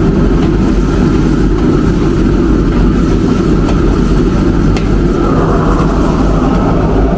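A high-flame gas wok burner running with a steady low rush under a large steel wok, while a ladle stirs a thickened sauce in it. There are a couple of faint clinks of the ladle, about a second and a half in and again near five seconds.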